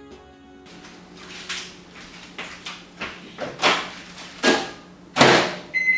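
Microwave oven running with a steady low hum, over a series of short whooshing noise bursts that get louder. A steady high beeping tone starts near the end.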